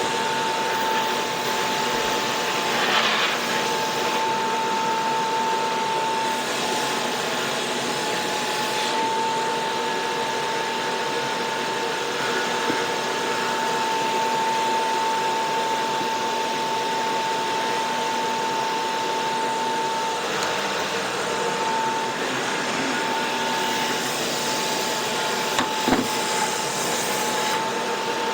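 Steady whirring motor noise with a constant whine, like a vacuum or air-moving machine running nonstop. Two short sharp clicks cut through it, one near the middle and one near the end.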